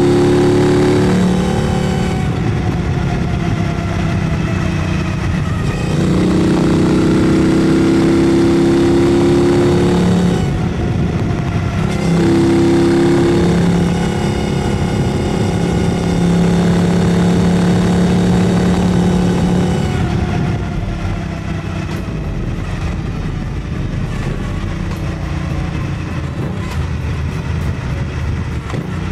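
Triumph Bonneville Bobber Black's 1200 cc parallel-twin engine through a full exhaust system, heard from the saddle while riding. The note climbs under acceleration, with a few brief dips along the way, then settles lower and quieter about two-thirds of the way through.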